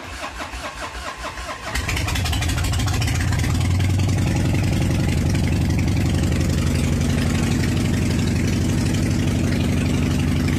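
An engine cranked by its starter with a quick pulsing rhythm, catching after a little under two seconds and then running steadily.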